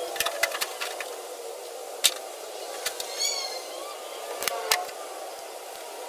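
Metal clicks and knocks as lathe parts are handled and repositioned, with the tailstock and its drill chuck brought up along the bed toward the work: a quick run of clicks at the start, a sharp knock about two seconds in, a short squeak about a second later, and two more knocks near the end.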